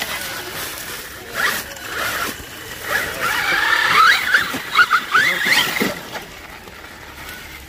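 Radio-controlled trail truck's electric motor and gears whining and rasping in quick throttle bursts, the pitch rising and falling, loudest from about three to six seconds in.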